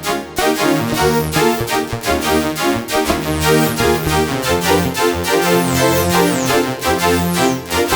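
Dave Smith Instruments Tempest analog drum machine and synthesizer playing a sequenced pattern: a stepping bass line under a fast run of bright, keyboard-like notes with sharp attacks.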